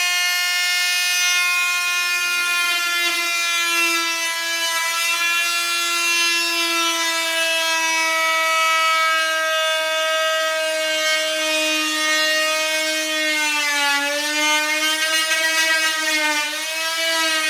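Corded oscillating multi-tool running with a steady pitched buzz as its blade cuts into a timber door lining. The pitch sags briefly twice near the end as the blade is loaded in the cut.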